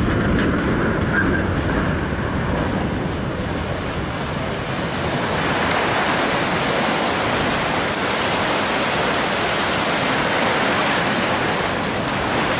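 The wave from a cargo ship's sideways launch surging along a riverbank and breaking over wooden pilings: a continuous rush of splashing, churning water that grows fuller about five seconds in.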